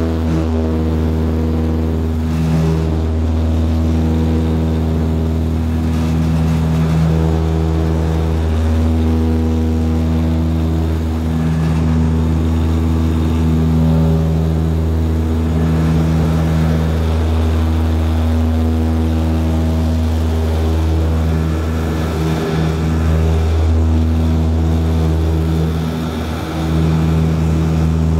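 Turboprop airliner's engine and propeller at takeoff power, heard from inside the cabin during the takeoff roll and liftoff: a steady, loud deep drone with a slow, regular swelling beat.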